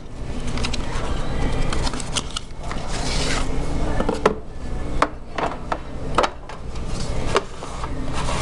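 Hands handling and opening a boxed hockey card product on a wooden table. About three seconds in, box surfaces slide against each other with a brief rush, followed by a run of sharp clicks and knocks.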